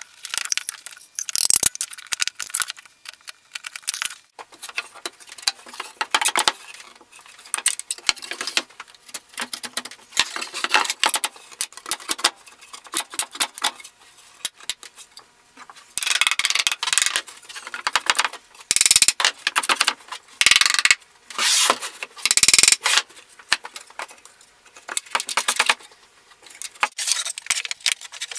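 Pine pallet boards knocking and clattering on a wooden workbench as toolbox pieces are handled and fitted into notched joints, in irregular runs of short clicks and knocks with a few heavier thuds.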